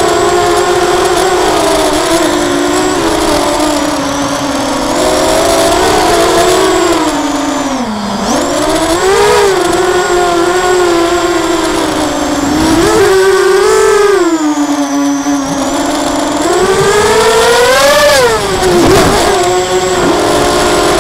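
Lumenier QAV250 quadcopter's four brushless motors and propellers whining, heard from its onboard camera, the pitch swooping up and down with the throttle. Sharp rises come about nine, thirteen and eighteen seconds in, with a dip near eight seconds, over steady wind and prop-wash hiss.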